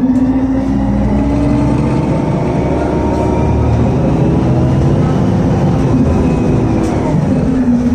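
Volgabus-5270.G4 city bus's Weichai WP7NG280E51 compressed-natural-gas engine heard from inside the cabin, pulling as the bus accelerates away from a standstill. The engine note rises as it moves off, holds steady under load, then dips briefly near the end.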